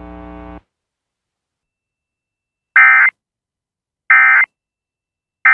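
Emergency Alert System End-of-Message signal: three short bursts of screeching SAME digital data tones, a little over a second apart, starting about three seconds in. A faint hum cuts off about half a second in, just before them.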